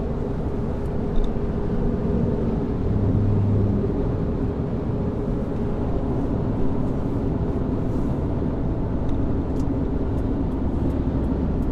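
Car driving: a steady low rumble of engine and road noise with a constant hum.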